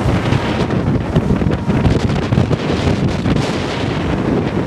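Gusty, turbulent wind buffeting the microphone, loud and fluttering unevenly in strength.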